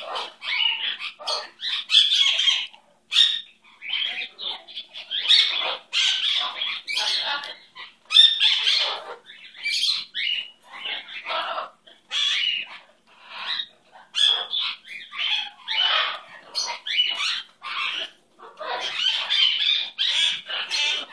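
Lutino Indian ringneck parakeet calling and chattering without pause, a run of short, raspy calls in quick succession with brief gaps between them.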